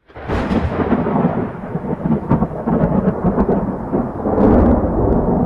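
Thunder rumbling, loud and rolling, with crackles through the middle and a fresh swell near the end.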